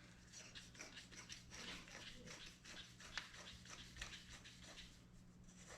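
Near silence: faint, irregular small clicks and rustles of handling over a steady low electrical hum.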